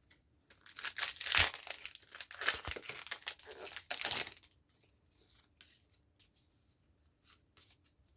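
Foil Pokémon TCG booster pack wrapper crinkling as it is torn open, from about half a second in to about four and a half seconds in, followed by faint soft rustles of the cards being handled.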